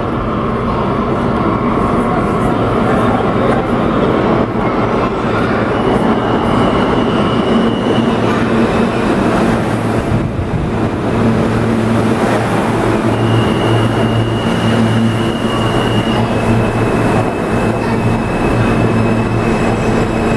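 R160A subway train with Alstom ONIX propulsion pulling into the station and rolling past along the platform: a steady, loud rumble of wheels on rail under a low motor hum. High-pitched squeals come and go about six seconds in and again from about thirteen seconds on.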